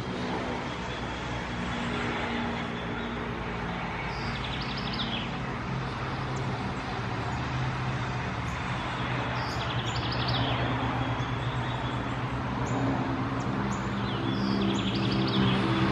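Steady low hum of vehicle engines, growing louder near the end, with a bird giving a short burst of high chirps three times, about five seconds apart.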